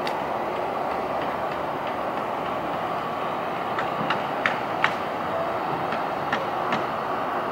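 Construction site work: a steady mechanical drone with irregular sharp knocks, scattered from about four seconds in.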